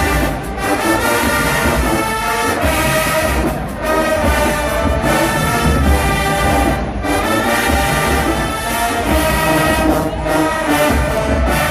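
HBCU marching band playing loudly: a massed brass section with drums, in phrases broken by short breaks.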